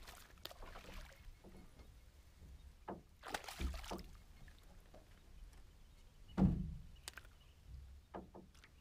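A hooked bass splashing at the surface beside a small boat as it is reeled in, then a louder splash as it is lifted out of the water. A short, heavy knock about six seconds in is the loudest sound, followed by a few light clicks.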